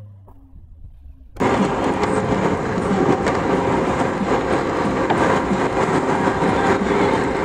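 Lada Niva (VAZ-2121) driving along a rough, rutted dirt track, heard from inside the cabin: a loud, dense rattling and clattering of the body and running gear over the ruts. It starts faint and cuts in abruptly about a second and a half in.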